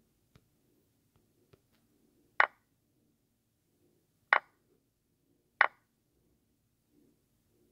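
Lichess chess app's piece-capture sound effect, three sharp clicks, the second about two seconds after the first and the third a second and a half later, as three captures are played in a row.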